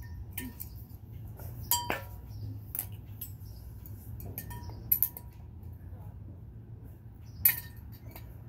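Metal tools and small parts clinking against the detached engine of a 1982 Sachs moped during disassembly: a few sharp clinks with a brief ring, a quick pair about halfway through and the loudest one near the end, over a steady low hum.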